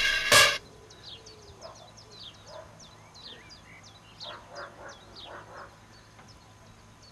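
Music with drum hits cuts off just after the start. Then quiet outdoor ambience: small birds chirping in short falling notes, and a duck quacking in runs of rapid calls from about four seconds in.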